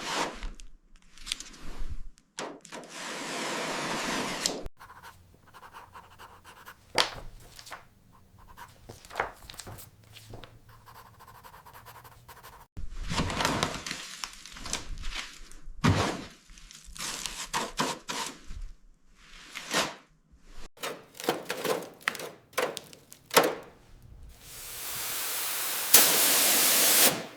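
A run of knocks and scrapes broken by several bursts of hissing noise, the loudest and longest hiss coming near the end.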